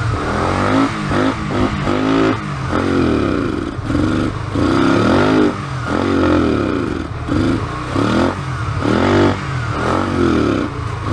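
Honda Shadow VT125C's small V-twin engine running and being revved over and over, its pitch climbing and falling back with each twist of the throttle.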